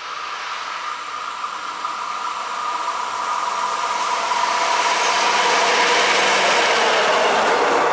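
East German V 100 diesel locomotive running light, approaching and passing close by, its engine and wheel noise growing steadily louder and peaking near the end, with a steady whine in it.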